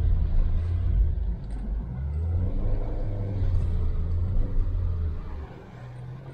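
Engine of an off-road 4x4 in low-range gear, rumbling at low revs under load as the vehicle crawls slowly over a trail obstacle. The rumble falls off sharply about five seconds in.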